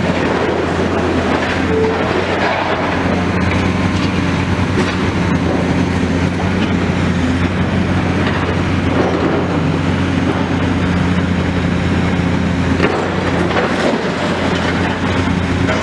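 Excavator's diesel engine running steadily with a constant low hum, with a few faint knocks over it.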